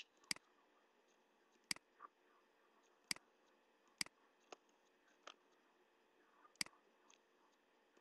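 Computer mouse clicks: a handful of sharp single clicks a second or more apart over near silence.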